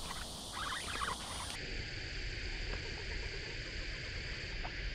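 Steady high-pitched chorus of evening insects, with a few faint clicks; the background tone changes abruptly about one and a half seconds in.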